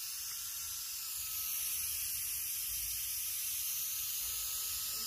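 Steady hiss of high-pressure air bleeding slowly out of a PCP air rifle's reservoir tube through a mini male fill coupler. The tube is being emptied gently so it is fully depressurised before it is opened.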